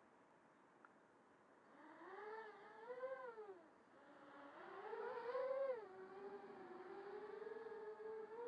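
Small 3D FPV quadcopter's 2206 2300 kV motors spinning Gemfan 5030 3D props, a whine that slides up and down in pitch with the throttle. It is faint at first, comes in about two seconds in, dips near four seconds, is loudest a little after five seconds, then holds steadier with small wavers.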